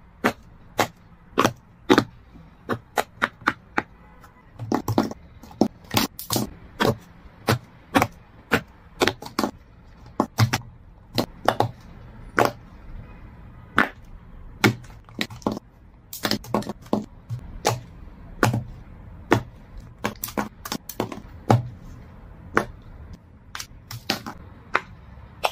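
Modular silicone pop-it fidget cubes being pressed and pulled apart: sharp pops and clicks, a few a second at uneven spacing.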